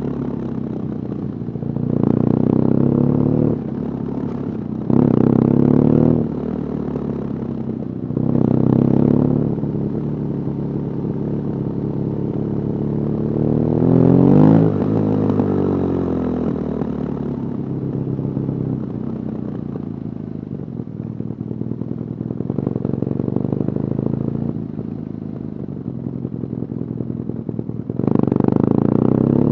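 BMW R nineT Urban GS's air/oil-cooled boxer twin heard onboard while riding: several short pulls on the throttle in the first third, a rise and fall in revs near the middle, a quieter spell rolling along, then a stronger pull away near the end.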